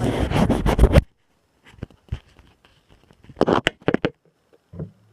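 A loud, rough burp lasting about a second, then a second shorter, loud burst about three and a half seconds in.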